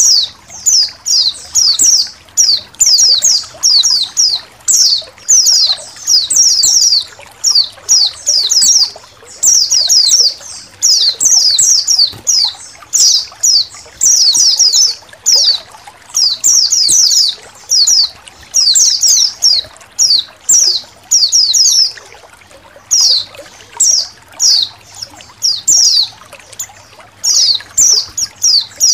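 A flock of white-eyes twittering: quick, high chirps that each drop in pitch, coming in tight runs with short gaps between them. Faint trickling water runs underneath.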